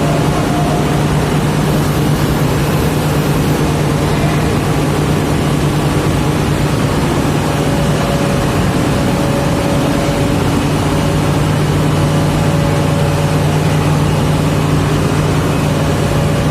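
Large diesel engine running at a steady speed, a constant low hum with no change in pitch.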